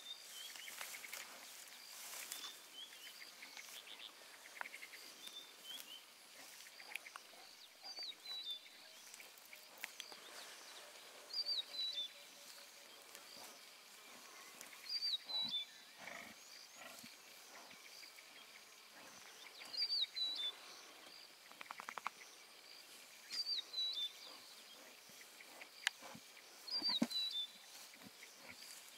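Lion cubs tussling and chewing on impala scraps in grass, with occasional low growls and rustling. Over them a bird repeats a short, high, falling call every three to four seconds.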